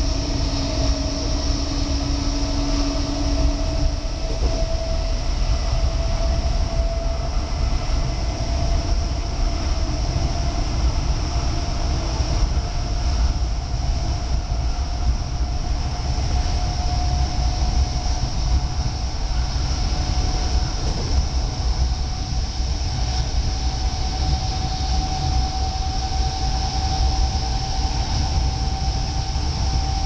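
NS Mat '64 Plan V electric multiple unit running at speed, heard from inside the carriage: a steady rumble of the wheels on the track with a thin whine that rises slowly in pitch as the train gathers speed.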